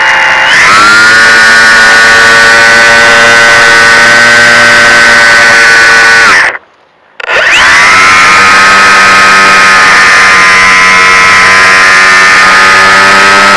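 Brushless electric motor and propeller of a fixed-wing FPV plane running with a steady, high-pitched buzzing whine, heard up close from on board. About six and a half seconds in, the motor spins down and stops for under a second (throttle cut), then spins back up with rising pitch to a steady whine again.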